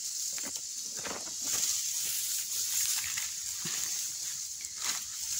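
Grass and dry leaves rustling in short crackles as a hand reaches in and handles a mushroom on the forest floor, over a steady high hiss.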